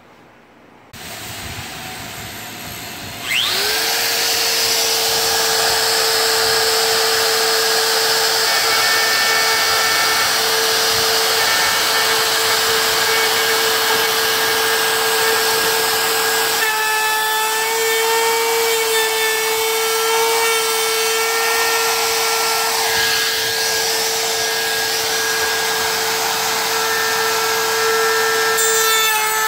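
DeWalt compact router starting up about three seconds in, its whine rising and then settling to a steady high pitch as it cuts along the edge of a plywood boat frame.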